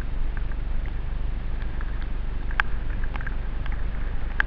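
Mountain bike ridden fast over a rough dirt trail, heard from a helmet-mounted camera: a steady low rumble of wind and trail noise, with sharp clicks and rattles from the bike, the loudest about two and a half seconds in and near the end.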